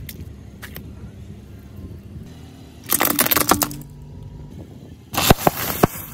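A car tyre crushing brittle objects on asphalt: a burst of crunching and cracking about three seconds in, with the plastic sunglasses snapping, then a second, louder run of sharp cracks near the end, under the low rumble of the car.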